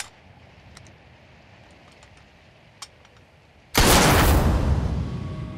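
A few faint metallic clicks from a bolt-action rifle being handled, then a single loud rifle shot nearly four seconds in, its echo dying away over a second or so.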